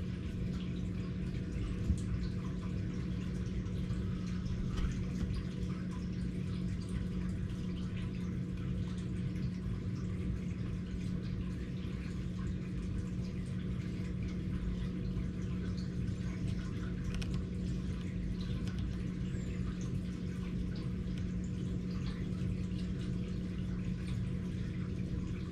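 Steady low hum with a faint trickling, dripping water sound, and a faint knock about two seconds in.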